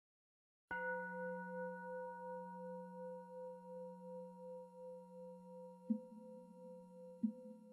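Singing bowl struck and left ringing: a low hum under brighter overtones that waver a few times a second as it slowly fades. Two brief knocks come near the end and are the loudest moments.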